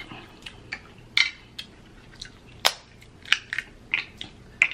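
Snow crab leg shells cracking and snapping as they are broken apart by hand to get at the meat: about a dozen sharp, irregular cracks and clicks, loudest a little over a second in and again past the middle.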